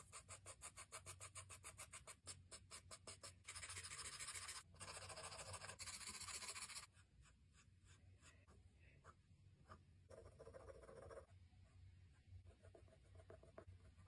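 Graphite pencil scratching on drawing paper. First come fast, even strokes at about five a second, then a few seconds of continuous shading strokes. After that come fainter, scattered strokes and a short stretch of rubbing.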